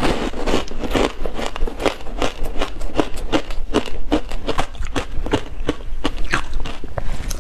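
Dense reshaped purple ice coated in milk powder being bitten and chewed: a quick, steady run of crisp crunches, several a second.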